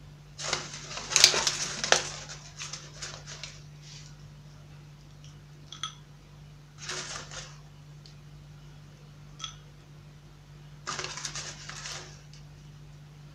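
Kitchen clatter: short runs of clinking and rattling, like dishes or cutlery being handled. The loudest run is about a second in, with more around seven and eleven seconds, over a steady low hum.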